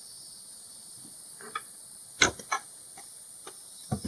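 Several short wooden knocks and clunks from a folding woodworking workbench being handled and turned over, the loudest about two seconds in. A steady high hiss of crickets runs underneath.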